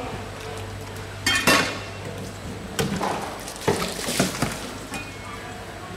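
Water splashed from a plastic scoop over a whole mahi-mahi on a plastic cutting board, with several sharp knocks and clatters as the fish and scoop are handled, over a steady low hum.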